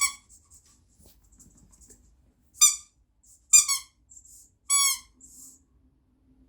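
Squeaker in a rubber dog toy squeezed in short squeezes, giving four brief high squeaks at the start and then about a second apart, the last dipping slightly in pitch.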